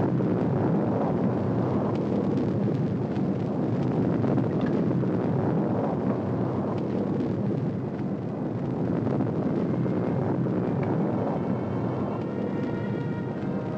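Steady, loud rushing rumble from an old film soundtrack, like wind or a storm effect, with faint music tones coming in near the end.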